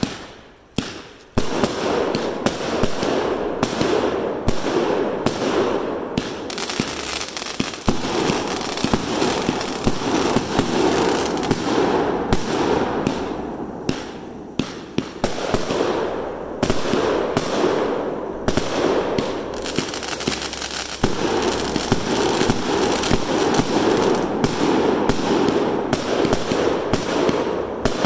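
A 49-shot 500 g firework cake firing: a rapid, near-continuous string of launch thumps and bursting cracks over a constant hissing wash. It eases briefly about halfway through, then picks up again.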